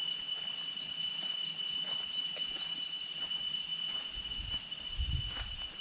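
Insects chirring steadily in a high, even drone, with a run of quick repeated chirps in the first couple of seconds. A low rumble comes in about four seconds in.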